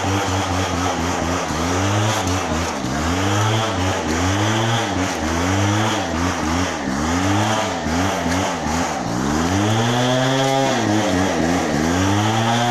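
Motor vehicle engine revving up and falling back over and over, roughly once a second, with one longer, higher rev about ten seconds in.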